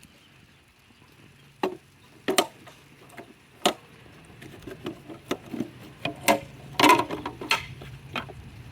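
Clicks and knocks from a robotic pool cleaner's filter basket and latches being opened and handled to empty the basket. Three separate sharp clicks come first, then a quicker run of them through the second half.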